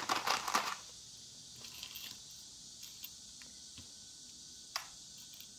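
Folded paper rustling briefly as the paper crown is handled, then a quiet room with a few faint light ticks and one sharper tick near the end as small lace-flower decorations are picked up.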